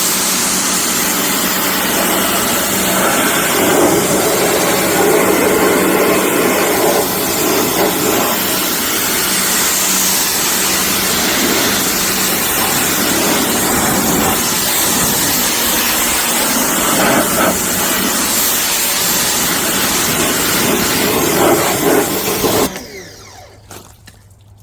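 Budget 4200 PSI-rated electric pressure washer running and spraying water at dried-on dirt: a loud, steady hiss from the jet with the motor's hum underneath. It shuts off abruptly near the end.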